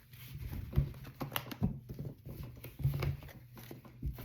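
Tarot cards being handled on a table: irregular soft clicks and taps of cards being shuffled, drawn and laid down.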